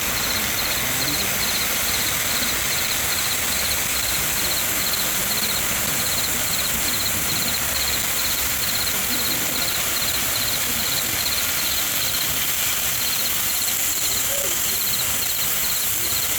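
Insects chirping in an even pulsed rhythm, about two to three chirps a second, over a constant high insect drone.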